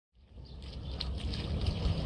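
Water splashing and rushing along a moving boat's hull, with low wind rumble on the microphone, fading in just after the start and growing louder.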